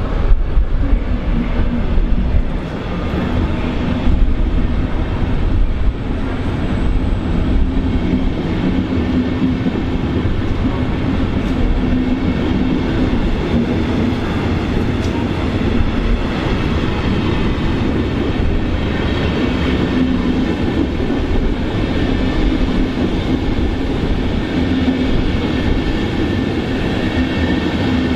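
A train running along the tracks: a loud, steady rumble with a low hum that swells and fades, and a few sharp clicks along the way.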